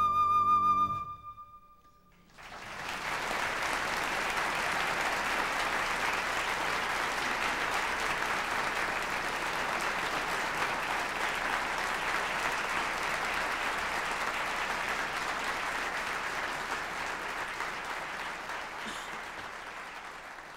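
Flute and piano holding a final note that dies away about a second in; after a brief hush, an audience applauds steadily, the clapping tapering off near the end.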